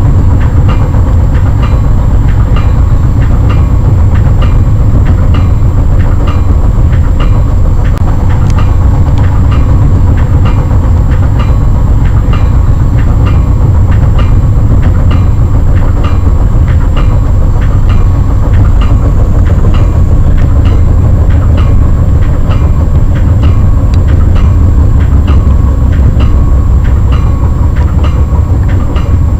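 Passenger rail car running at speed: a steady, loud, deep rumble with wheels clicking regularly over rail joints, a couple of clicks a second.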